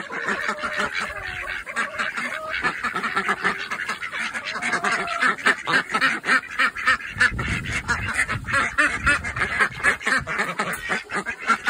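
A flock of domestic ducks, white Pekins among them, quacking without pause in a dense clamour of short overlapping calls: hungry ducks begging for food.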